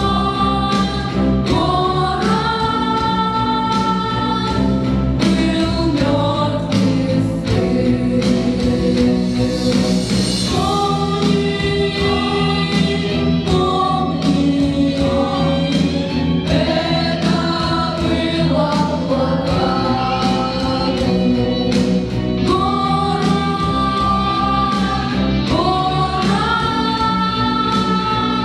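A choir singing a song over instrumental accompaniment with a regular beat, holding long notes.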